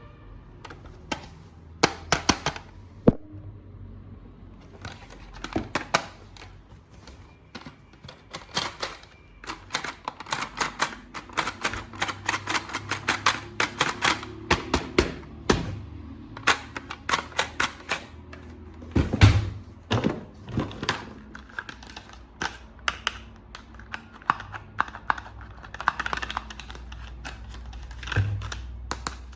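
Hard plastic toy parts and packaging being handled: a long run of sharp clicks and taps, thickest in the middle, with a few heavier knocks about two-thirds of the way through.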